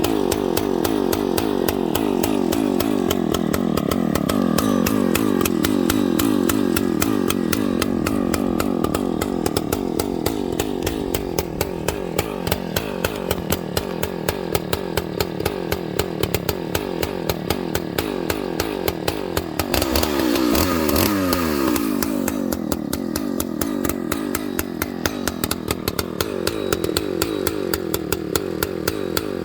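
Husqvarna 298XP two-stroke chainsaw running at high revs while cutting wood under load, its pitch wavering as the bar works through the cut. About two-thirds of the way in the revs briefly change, then settle back into cutting.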